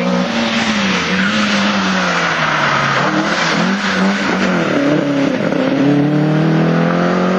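Opel Ascona hillclimb race car driven hard past at close range, its engine at high revs. The pitch dips and recovers several times as it shifts and drives through the bends, then climbs steadily over the last couple of seconds as it pulls away uphill.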